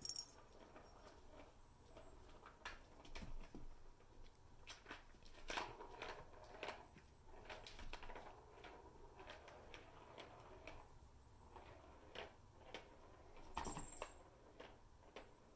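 Sparse, faint clicks and knocks of plastic balls rolling and bumping in a plastic roller-circuit cat toy as a kitten paws at them, with a brief brighter rattle near the end.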